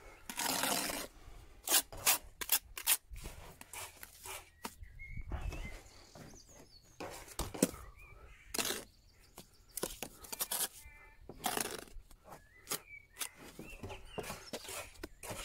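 A steel trowel scraping and knocking on stone blocks and wet mortar as the joints of a stone wall are filled and struck: a run of short scrapes and taps with a few longer scrapes. Birds chirp faintly in the background.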